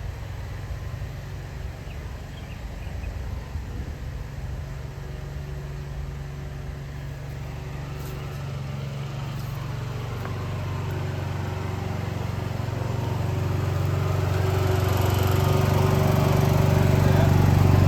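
Briggs & Stratton 16.5 hp twin-cylinder riding-mower engine running steadily, growing gradually louder through the second half.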